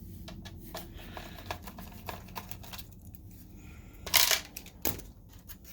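Small clicks and taps of tools and small parts being handled, with a brief sharp metallic clatter about four seconds in and another click just before the end.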